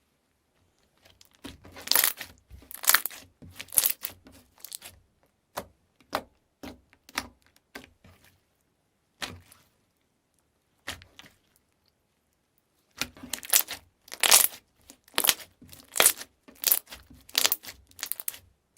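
Slime being squeezed and pressed by hand, giving clusters of short, crisp crackling pops separated by silent pauses.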